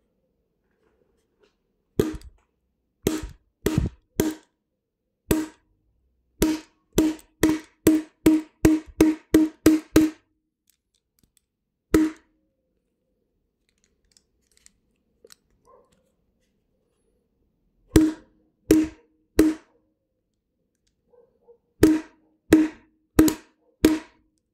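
Globe combination padlock being struck hard in a kinetic attack, jarring its locking plate to release the shackle. Sharp knocks, each with a short ringing note: a few spaced strikes, then a quick run of about two a second, a single one, and near the end groups of three and four.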